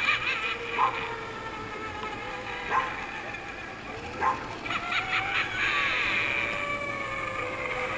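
A dog barking several times: single barks a couple of seconds apart, then a quick run of barks about five seconds in, over a steady sustained tone.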